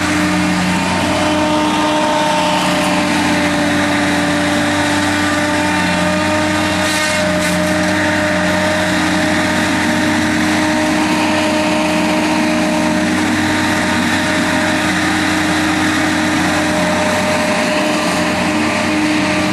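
An engine running steadily at an even pitch, without letup.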